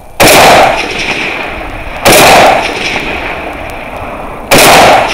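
Three rifle shots from a scoped rifle, fired deliberately about two seconds apart. Each shot is loud enough to overload the recording and is followed by a short trailing echo.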